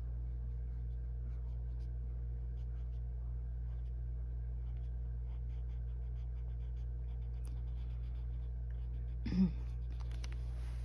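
Arteza colored pencil shading on paper: faint, scratchy strokes over a steady low hum. Near the end comes a short vocal sound.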